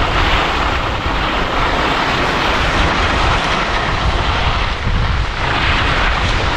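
Wind rushing over a moving action camera's microphone, with a steady rumble and a hiss of skis sliding over snow during a downhill run.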